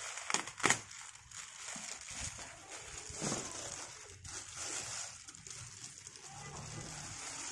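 Thin plastic bag crinkling and rustling as it is handled, with cardboard packaging being moved; two sharp clicks sound within the first second.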